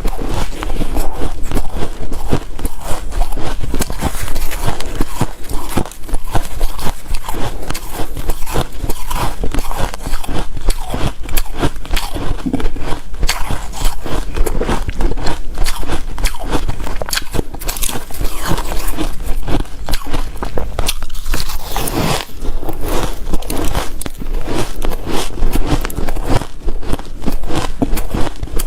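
Hard shaved ice and crushed ice being bitten and chewed close to the microphone: a dense run of loud, irregular crunches and crackles.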